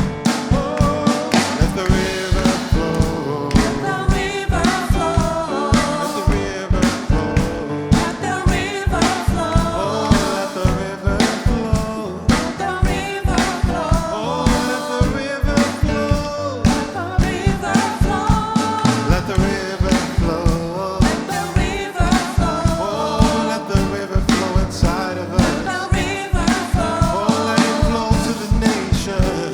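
Live gospel worship band playing with a steady drum-kit beat, with singing over it.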